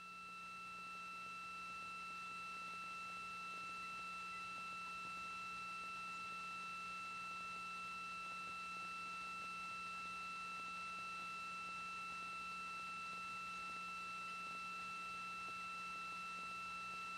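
Faint, steady electronic tone with a second tone an octave above it and a low hum underneath, fading in over the first second or two and then holding level.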